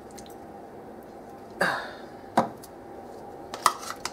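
A metal spoon knocking and clinking against a plastic measuring cup as apple pie filling is spooned out: a sharp knock about halfway through and a few quick clinks near the end. A short noisy burst comes about a second and a half in.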